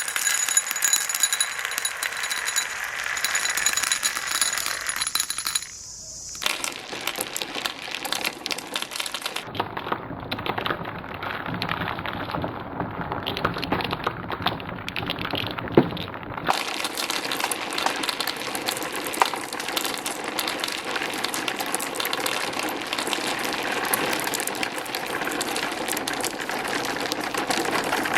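Marbles rolling and clattering down a marble run: a dense, rapid clicking of many small hard balls on the tracks. In the first six seconds steady ringing tones sound over it. From about ten seconds in it turns duller for several seconds, with the high end gone, then goes back to bright clicking.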